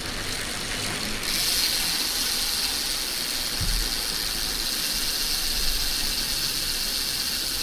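Freehub of a 2005 Mavic Ksyrium rear wheel buzzing as the wheel spins freely, a steady high buzz that starts about a second in.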